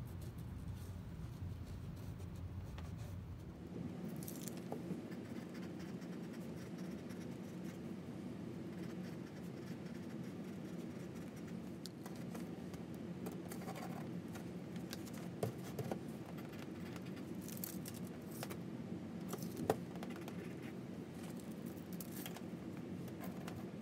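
Pencil scratching on paper with light clicks and scrapes as steel saw plates, the wooden tote and a tape measure are handled on the workbench, over a steady low hum. The two sharpest clicks come about two-thirds of the way through and shortly after.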